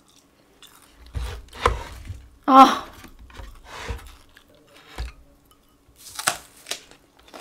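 Close-miked mukbang handling and eating sounds: a few knocks and rustles, a short 'ah' about two and a half seconds in, then a crisp bite into a raw green onion stalk near the end.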